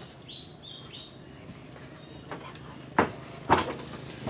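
Two sharp knocks of dishes or crockery being set down on a table, about half a second apart, past the middle.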